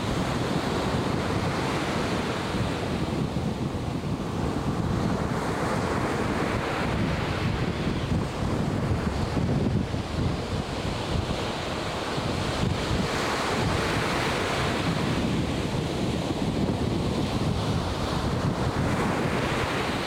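Atlantic Ocean surf breaking and washing in. The hiss of the water swells up twice, over a steady rumble of wind buffeting the microphone.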